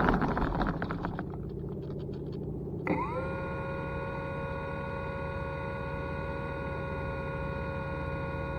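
Wind and motor noise fading away, then about three seconds in a steady electronic tone with several pitches at once starts abruptly and holds.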